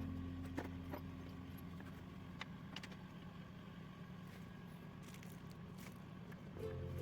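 Background music fading out, then a few seconds of faint background with a handful of sharp clicks, and the music coming back in near the end.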